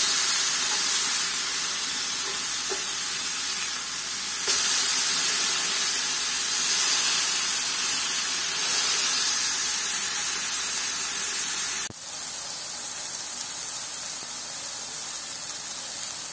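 Beef burger patties sizzling on a hot ridged grill pan just after being flipped, a steady hiss of frying fat and steam. It drops suddenly to a quieter sizzle about twelve seconds in.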